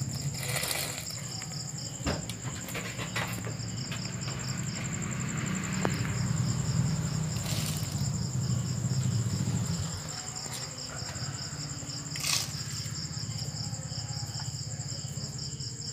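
Crickets chirping steadily over a low rumble that swells through the middle. A few light knocks and clinks come from a metal strainer against a cooking pot as rice is tipped in.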